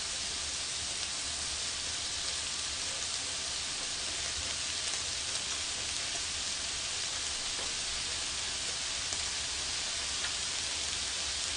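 Shrimp rolls wrapped in thin-sliced pork belly sizzling steadily on a tabletop grill plate, with a few faint pops.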